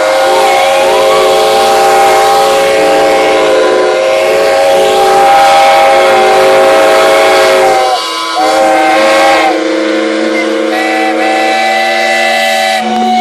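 Many steam engine whistles blowing at once, a loud mass of held tones at different pitches over the hiss of steam. About eight seconds in the sound dips briefly and some whistles drop out, leaving fewer still sounding.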